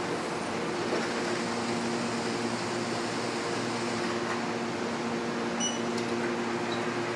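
Steady machine hum with an even hiss, like a fan or ventilation unit running, holding the same pitch throughout.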